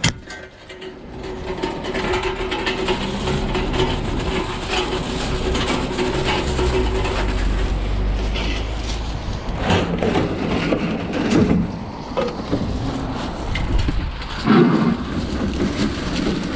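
Wind buffeting the microphone with a low rumble, broken by a few short thuds in the second half.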